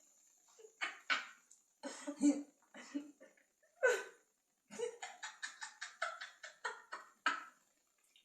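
A person's voice making short wordless bursts in quick succession, some broken into rapid pulses, with brief pauses between.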